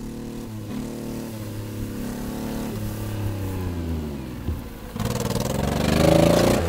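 Japanese mini truck's small engine revving as it drives over rough grass, its pitch rising and falling with the throttle. It gets much louder about five seconds in as the truck comes close past.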